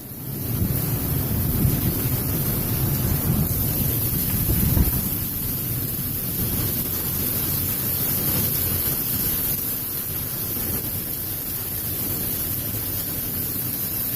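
Strong storm-front wind gusting against the microphone, a heavy low rumbling buffet, gustiest in the first five seconds and then steadier.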